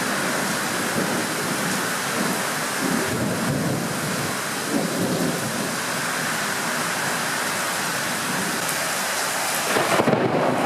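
Heavy storm rain falling steadily: a dense, even hiss with no let-up.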